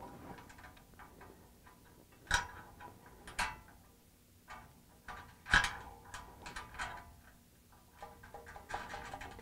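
Sparse light metallic clicks and taps of hex nuts being threaded finger-tight onto 5/16-inch bolts at the corner of a cold-rolled steel rack frame. The clearest click comes about midway.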